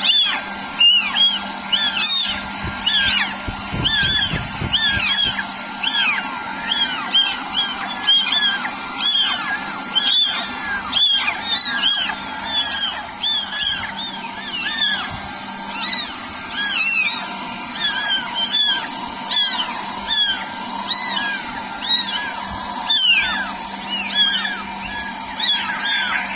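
Several young kittens mewing over and over in high, overlapping cries, a few each second, over a steady hum.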